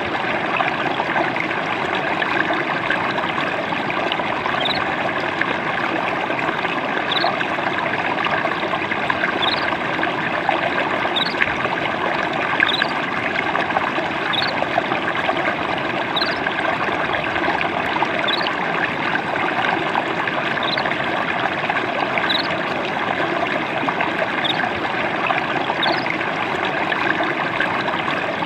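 Water babbling and trickling steadily, as from a small stream. Over it a bird gives a short, high, upward chirp about every one and a half to two seconds.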